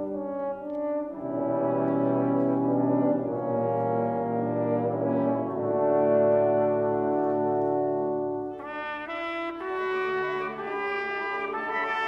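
Orchestra playing slow, held chords, with horns and low brass to the fore. Past two-thirds of the way through, higher, brighter parts enter above them.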